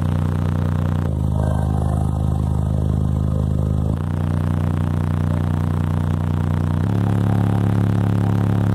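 Car subwoofers playing bass-heavy music at a very high level inside the car. Deep sustained low notes shift about every three seconds. The bass is strong enough to whip a passenger's long hair around: the SPL 'hair trick'.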